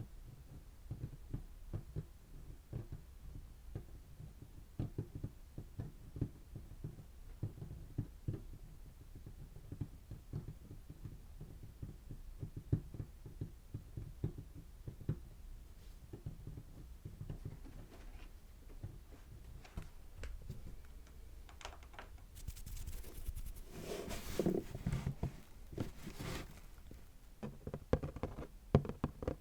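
Soft, quick ASMR tapping: many light taps in close succession. About three-quarters of the way through comes a louder, scratchier stretch, followed by faster taps near the end.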